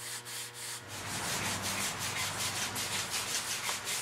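Cloth rubbing briskly back and forth over the stenciled wooden crest rail of an antique rocking chair, a quick hissing stroke about four times a second.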